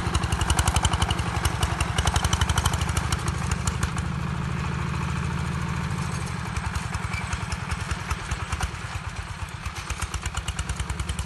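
Two-wheel power tiller's single-cylinder diesel engine running under load as it tills soil, with a rapid, even beat that grows fainter as the machine moves away.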